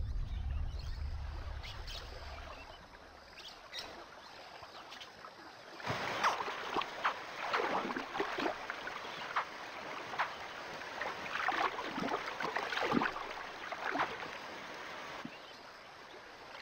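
Shallow river water splashing and lapping as a mother crocodile lets her hatchlings out of her jaws into the water: a run of small, irregular splashes from about six seconds in until near the end.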